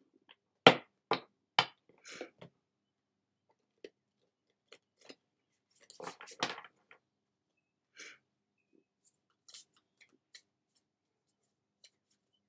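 A deck of oracle cards being shuffled by hand. Three sharp knocks come in the first two seconds, a quick flurry of card slaps about six seconds in, then a few faint ticks.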